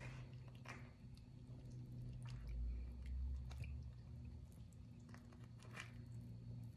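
Faint soft squishes and scattered light crackles of a flatbread sandwich loaded with pulled pork, potato salad and coleslaw being folded closed and pressed by hand, over a low steady hum.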